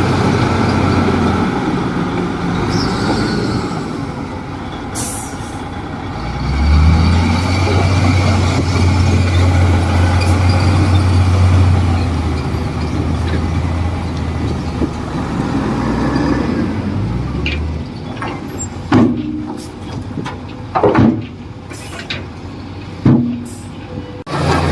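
Heavy diesel engine of a bulldozer or dump truck running, its low note growing louder for about twelve seconds as it works, with a brief air hiss early on. Near the end the engine drops back and three or four sharp metallic knocks ring out.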